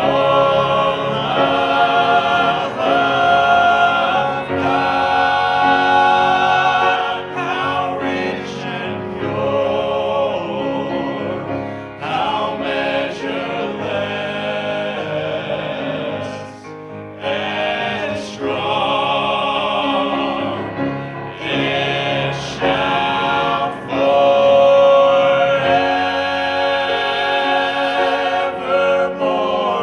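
A vocal group singing a hymn in harmony, with sustained notes and short breaks between phrases.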